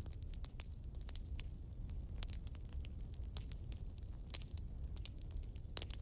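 Logs burning in a fireplace, the wood crackling with irregular sharp pops over a low steady rumble; one louder pop comes about four seconds in.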